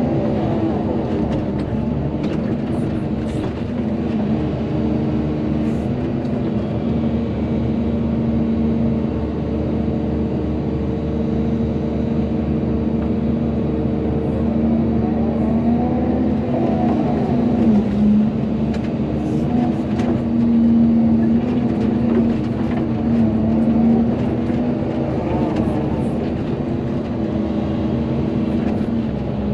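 Volvo EC220DL excavator's diesel engine and hydraulics running steadily under work, a constant drone. Several times the pitch swells up and falls back as the hydraulics take load, around the middle and again near the end.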